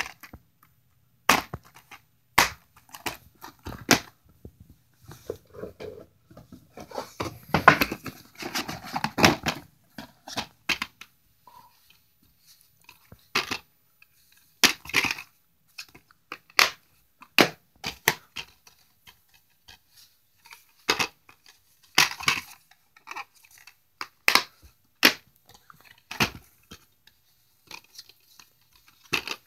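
Plastic DVD cases being handled and opened: scattered sharp clicks and clacks of the cases, with a longer stretch of rustling about seven to ten seconds in.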